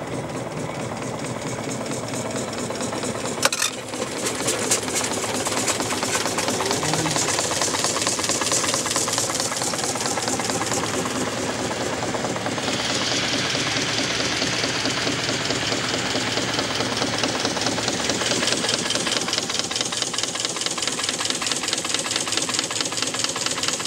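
Small steam launch's steam engine running under way, a rapid, even mechanical beat with one sharp knock a few seconds in. A steady hiss joins about halfway through.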